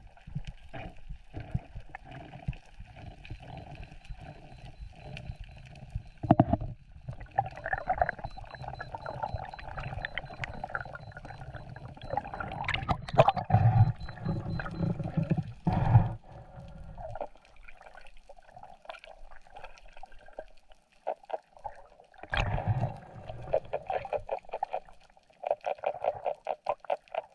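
Water sloshing and gurgling as heard through an underwater camera's housing, with scattered clicks and knocks and a few louder surges. A low rumble drops away about two-thirds of the way through.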